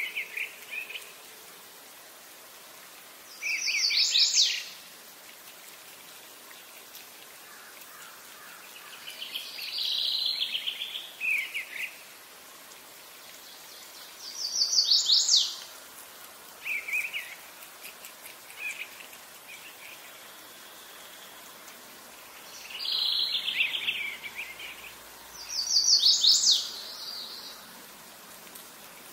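A songbird singing short, fast, rapid-note phrases, about six of them a few seconds apart, over a steady faint background hiss.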